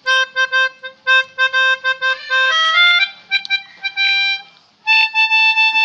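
Pianika (keyboard melodica) playing a tune: quick repeated short notes on one pitch, then a run of notes stepping upward, a brief break, and a long held higher note near the end.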